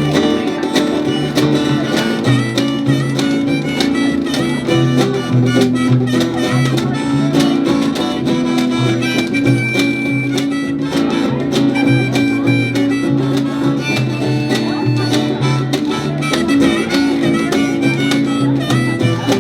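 Live band playing an instrumental break: a steady bass line and drums under guitar, with harmonica on top.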